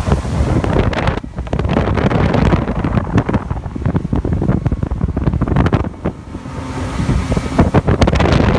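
Wind buffeting the microphone on a Boston Whaler 230 Vantage running at speed, with the rush of water and its outboard motor underneath. The wind eases briefly about six seconds in, then picks up again.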